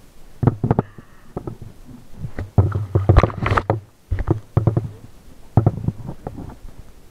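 Muffled underwater knocks and rumbles from handling close to the underwater camera housing, in four bursts of about a second each, with sharp clicks among them.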